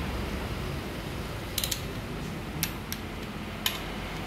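Metallic clicks of a torque wrench and socket as the cylinder-head nuts of a CRF150L engine are tightened to torque: a quick double click about one and a half seconds in, then single clicks about a second apart.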